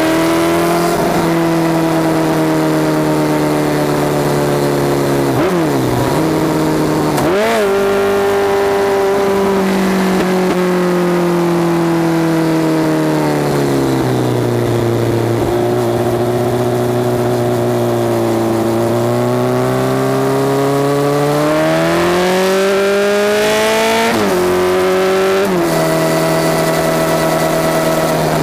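Honda CBR1100XX Super Blackbird's inline-four running through Takkoni mufflers with straight pipes, heard from under the seat while riding. The engine note rises and falls with the throttle, with quick gear changes about six and seven seconds in, a slow fall in pitch mid-way, then a steady climb and two upshifts near the end.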